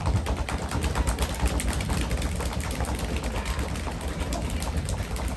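A live drum roll: a steady, rapid stream of drum hits building suspense before a winner is named.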